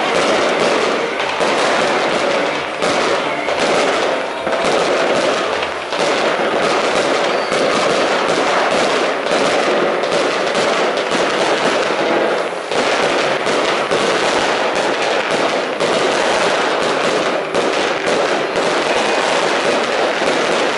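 Fireworks: a continuous, dense barrage of overlapping bangs and crackles from aerial shells and firecrackers, with no pause.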